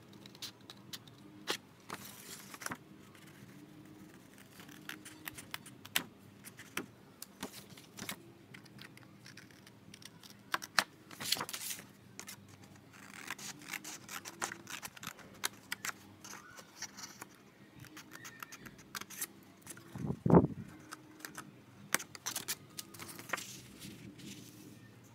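A sheet of heavy A4 drawing paper being handled and turned over a stack of art pads: rustling and crackling with many light taps and clicks, and one dull thump near the end, the loudest sound.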